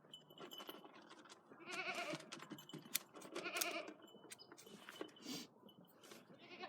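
Kiko goat bleating twice, each a short wavering call under a second long, with faint clicks between.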